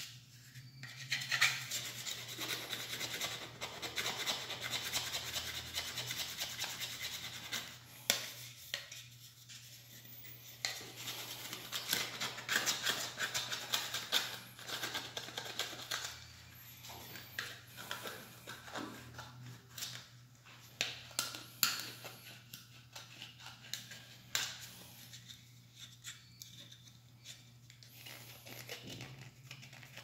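A small metal blade scraping dried paint off the plastic cover of a System Sensor smoke detector. It is one continuous scrape for the first several seconds, then short separate strokes with gaps between.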